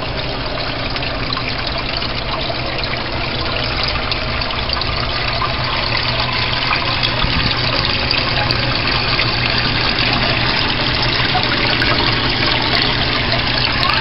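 Pond water running and splashing from the outflows of its waterfall and filter pumps, with a steady low hum underneath.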